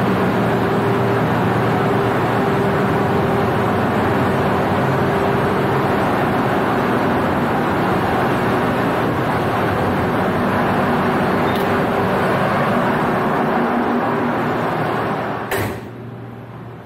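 Steady loud drone of a ship's running engine-room machinery, its main diesel engine among it, with a steady hum under the noise. About fifteen seconds in a door shuts with a knock and the noise drops to a much quieter hum, as heard inside the engine control room.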